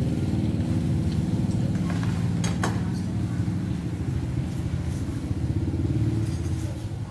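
A small engine running steadily, with a couple of brief clicks about two and a half seconds in; it drops off near the end.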